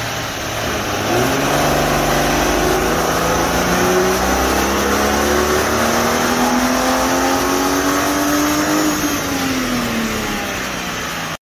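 Ford BF Falcon XR6's naturally aspirated Barra inline-six under load on a hub dyno. It is a baseline power run on the factory intake manifold. The engine revs climb steadily for about eight seconds, then drop back as it comes off the throttle, and the sound cuts off suddenly near the end.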